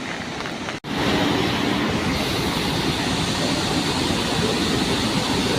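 Steady rushing of a monsoon flash-flood torrent. It starts louder after a brief break in the sound about a second in.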